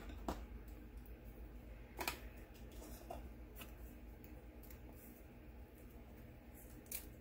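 A few light clicks and taps of small desk items being handled, spaced a second or more apart, the sharpest about two seconds in, over a faint steady low hum.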